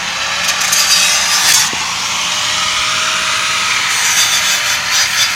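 Power grinder with an abrasive cutting wheel grinding through a rivet on a truck frame's coil spring bucket, a steady harsh grinding with the motor's tone sagging and recovering slightly under load.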